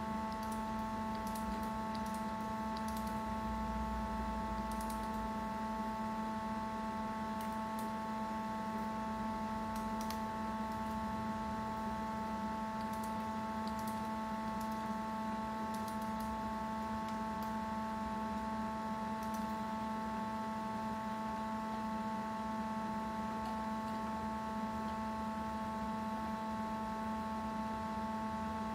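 A steady hum of workshop machinery with several fixed pitches, with scattered light clicks as a T-type ratchet tap wrench is worked back and forth by hand to tap a hole.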